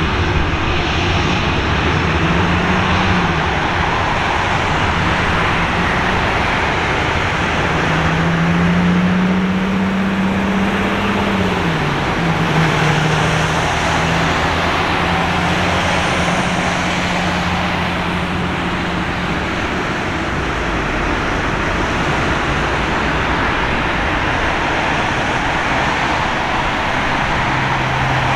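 Steady roar of road traffic, with one vehicle's engine hum rising and then dropping in pitch partway through.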